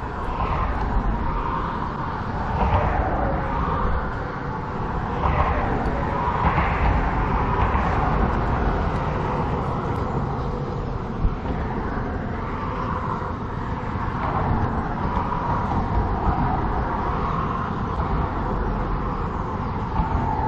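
Steady outdoor noise of wind buffeting the microphone, with road traffic running underneath.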